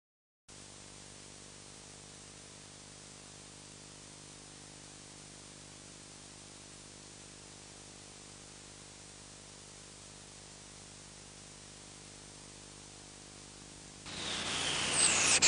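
Steady faint hiss with a low hum, the noise floor of an analogue videotape. Near the end, loud electronic music breaks in: several whistling, theremin-like tones glide down in pitch.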